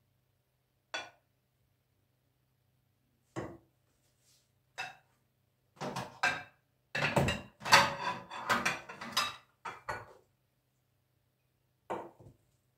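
Plates and a serving spoon clinking and knocking as food is dished out: a few single knocks, then a quick run of clatters in the middle, then two more knocks near the end.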